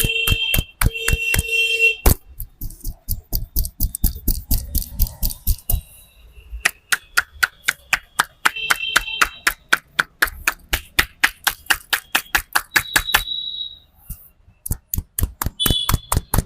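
Rapid, rhythmic hand strikes of a barber's percussive head massage, about five slaps a second, pausing briefly twice. A few short high beeping tones sound over it.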